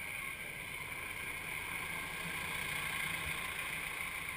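Tractor engine running as the tractor drives up close, growing a little louder in the middle.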